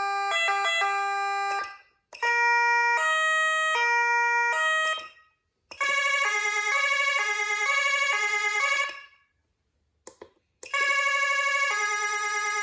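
Whelen CenCom Sapphire electronic siren sounding a run of stepped multi-pitch tones that jump between fixed notes rather than gliding. One pattern ends about two seconds in, and three more follow with short silences between them. The middle one alternates faster than the others.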